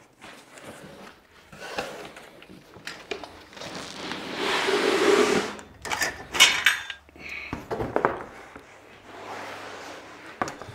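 A cardboard box being opened and a thick, heavy rubber mud flap pulled out of it onto a table: cardboard rustling and scraping, with a longer sliding scrape about four seconds in, a few sharp knocks just after, and softer handling towards the end.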